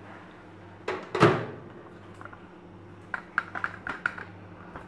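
Microwave oven door shut with a knock about a second in, then a quick run of clicks from its keypad buttons being pressed about three seconds in.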